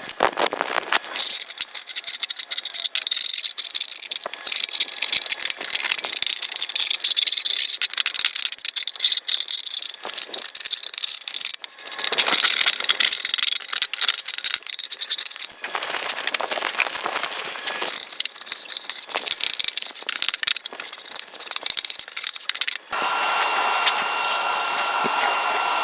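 Scraper scraping caked grass and debris off the underside of a push mower's deck, in rapid, uneven scratching strokes with a few short breaks. Near the end it changes to a steadier hiss.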